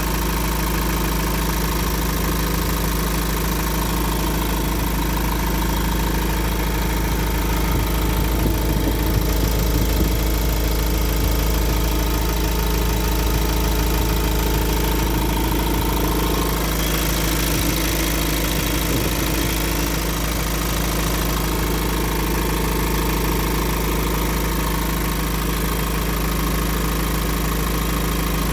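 Iveco diesel engine idling steadily, with a noise in the engine that the owner takes for a fault.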